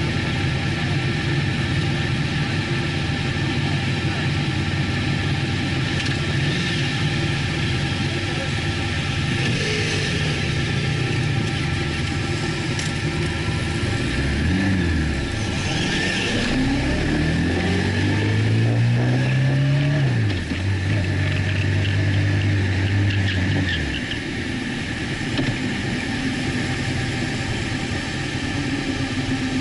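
Sport motorcycle engines idle in a group, then pull away about halfway through. The revs climb in rising sweeps that drop back with each upshift, then settle to a steadier run.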